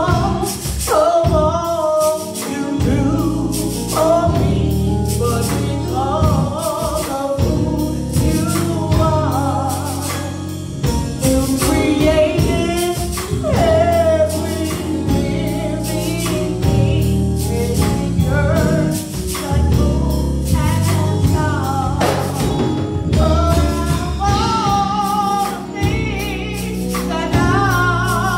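Gospel singing by a small group of voices with instrumental accompaniment, a steady bass line and a regular beat underneath.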